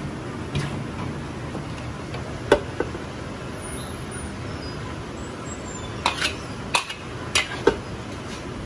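Metal tongs and a wok ladle clinking against a wok and a ceramic platter as stir-fried noodles are plated: about eight sharp clinks, one loud strike about two and a half seconds in and a quick cluster near the end, over a steady kitchen background noise.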